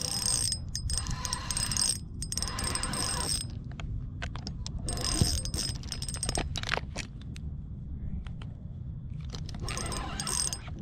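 Fishing reel drag buzzing in several short spurts as a hooked fish pulls line off against it, over a low steady rumble.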